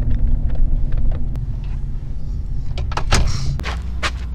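Pickup truck engine running at idle, with knocks and clunks of a vehicle door being opened and shut about three seconds in.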